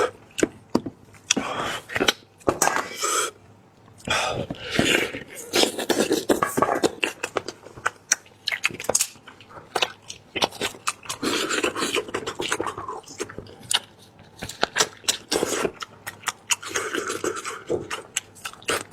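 Close-miked eating of braised lamb head: wet chewing, lip-smacking and sucking meat off the bone, with many sharp mouth clicks.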